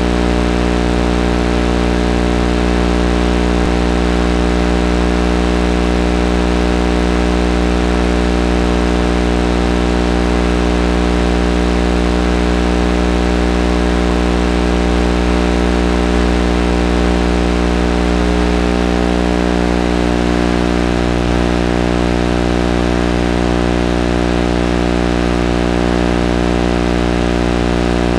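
Steady electrical buzzing hum with many even overtones, unchanging throughout, the kind of interference heard on the audio of an analog FPV video link while the crawler sits still with its motor drawing almost no current.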